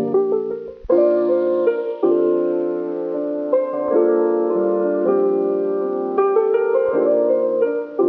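Background instrumental music: a calm tune of held notes that change about once a second.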